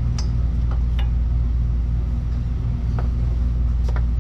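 A steady low machine hum runs throughout, with a few light clicks and taps as the brake lines and regulator are handled.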